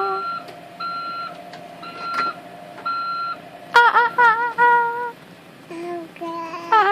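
Four short electronic beeps, about one a second. From just under four seconds in, a high voice sings several wavering la-like notes; these are louder than the beeps.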